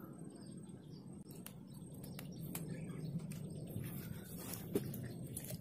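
Faint birds chirping over a steady low rumble, with scattered small clicks and a single knock near the end.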